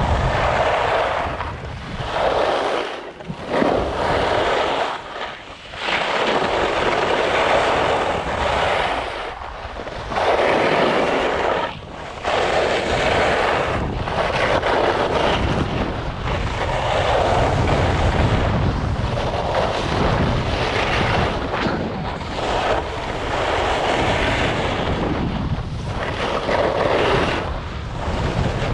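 Skis scraping and hissing over hard-packed snow, swelling with each turn roughly every couple of seconds, with wind buffeting the microphone.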